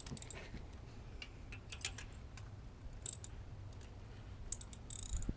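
Scattered light clicks of a ratchet and spark plug socket being worked, with a quick run of clicks near the end, as new spark plugs are tightened past finger tight.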